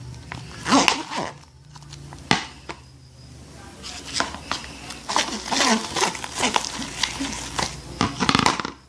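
Sticky, still-unfinished slime being mixed and worked in a bowl after more activator has been added: irregular wet squishing and sticky smacking, with sharp clicks against the bowl.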